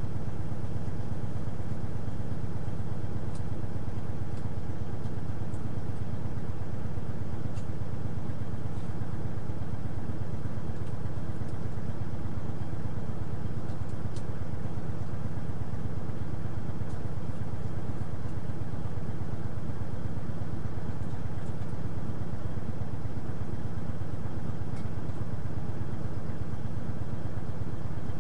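A parked semi truck's diesel engine idling steadily, a constant low hum heard from inside the cab.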